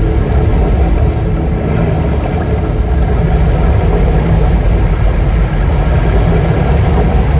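Loud, steady low rumble from the light-and-sound show's soundtrack over loudspeakers, between lines of narration.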